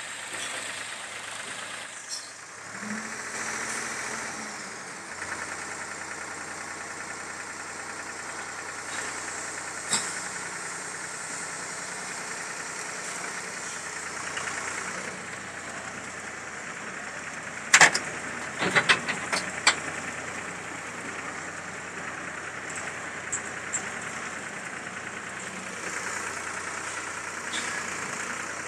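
Tractor diesel engine running steadily while the tractor is driven slowly, with a cluster of sharp metallic knocks about two-thirds of the way through that are the loudest sounds.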